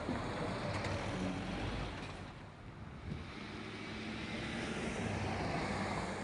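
Cars driving past on a city street: tyre and engine noise swells as one car passes in the first couple of seconds, dips, then swells again as another car passes close near the end.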